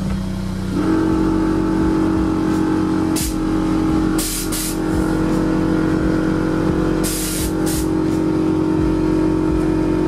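Air-suspension compressor on a bagged VW Golf GTI running with a steady drone that steps up in pitch about a second in. Several short hisses of air come from the air-ride valves.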